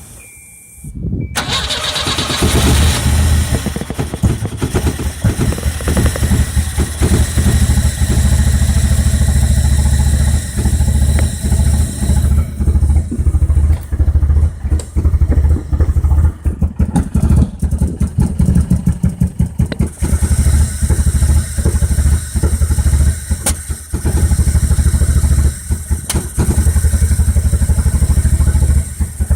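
Volvo B21FT turbocharged 2.1-litre four-cylinder engine on a Microsquirt ECU, catching about a second in and then idling roughly, its exhaust note uneven with frequent stumbles and dips.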